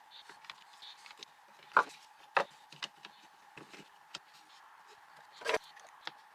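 Scattered clicks and knocks of the angle grinder's hard plastic and metal parts being handled during reassembly, three of them louder than the rest, over a faint steady hum.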